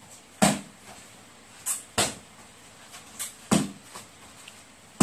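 Strikes landing on a handheld taekwondo kick paddle: sharp slaps, three strong ones and a few lighter ones, irregularly spaced.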